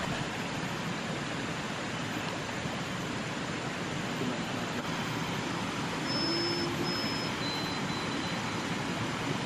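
Shallow forest stream rushing over rocks: a steady, even rush of water.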